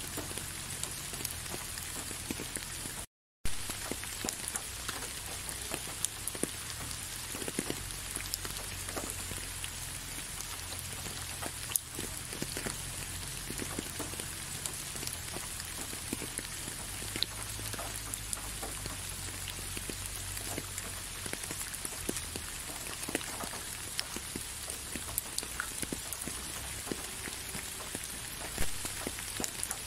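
Steady rain falling, with many individual drops heard as sharp little ticks over an even hiss. The sound cuts out completely for a fraction of a second about three seconds in.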